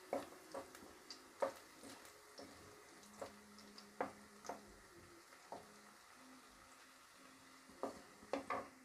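Wooden spatula stirring chopped garlic and ginger frying in oil in a kadai: irregular soft taps and scrapes of the spatula against the pan over a faint sizzle.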